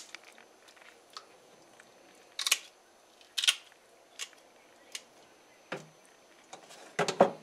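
Knife cutting a flounder along its backbone on a wooden cutting board: scattered crunching clicks as the blade goes through bone and flesh, with louder ones about two and a half and three and a half seconds in and a quick cluster near the end.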